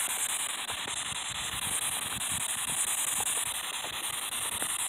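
Steady high hiss with scattered faint crackles and soft thumps, from footsteps and the handheld phone being handled while walking.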